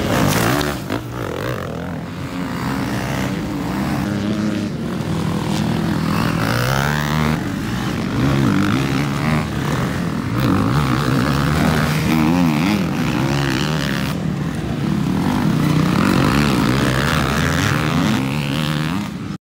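Several enduro motorcycle engines running and revving, their pitch rising and falling; the sound cuts off suddenly near the end.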